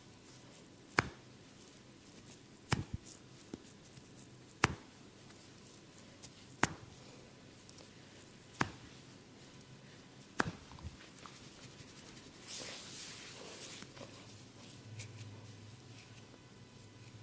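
Sharp snapping clicks from the barber's hands working on the head during a massage, one about every two seconds. Later a short rubbing hiss follows.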